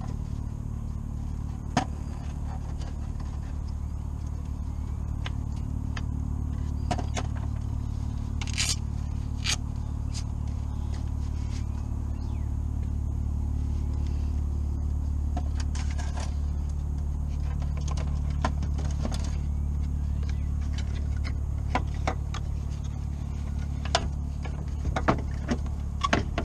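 Scattered scrapes and clicks of hands working plastic and metal parts in a BMW 3 Series front wheel well, sliding the headlight ballast forward to reach its connector clips, over a steady low hum.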